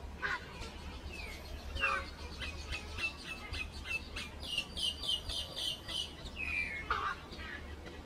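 Common myna singing: a run of short repeated notes, about four a second and louder toward the middle, among sliding and falling calls.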